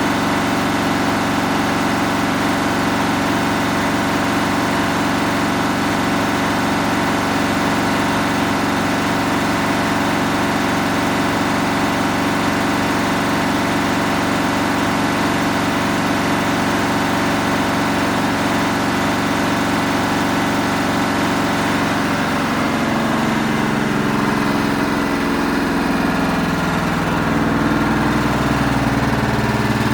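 Samsung EcoBubble washing machine running, with a steady hum of several motor tones. About 22 seconds in, the tones start to glide and shift as the drum changes speed.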